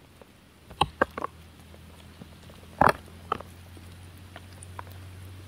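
Eating sounds from roasted goat meat being bitten and torn off the bone: a few sharp crunches and cracks, a cluster about a second in and another near three seconds.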